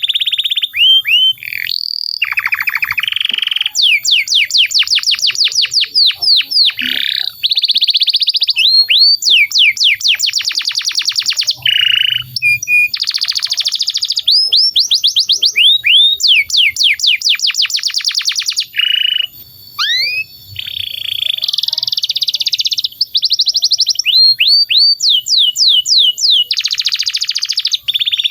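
Canary singing a long, continuous song: a string of rolling trills, each a fast run of the same note repeated, changing to a new trill every second or two, with quick sweeping notes between them and only a few brief breaks.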